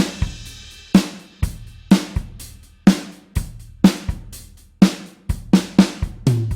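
Rock drum kit pattern: bass drum and snare hits with hi-hat and cymbals at a steady tempo, a strong accent about once a second, and a cymbal crash at the start. Low sustained bass notes sound under parts of the beat.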